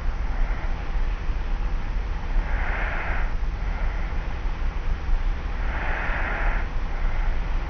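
Slight snoring of a person asleep on their back, a slow breath about every three seconds, each a soft rasp followed by a fainter one. Under it runs the steady hum and hiss of a cassette tape recorder.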